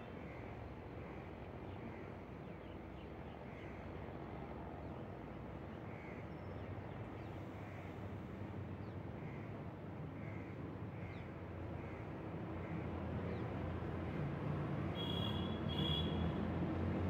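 Outdoor background sound: a steady low rumble that grows louder over the last few seconds. Over it, faint short bird calls repeat every second or so, and two sharper calls come close together near the end.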